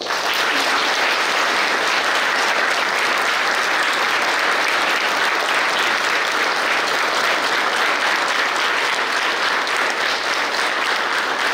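An audience applauding: dense, steady clapping from a large crowd.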